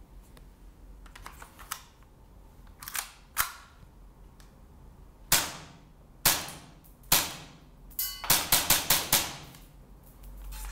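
Tokyo Marui Sentinel Nine gas blowback airsoft pistol: a few light handling clicks, then sharp shots with the slide cycling. Three single shots come about a second apart, then a fast string of about six, after which the slide locks open on an empty magazine.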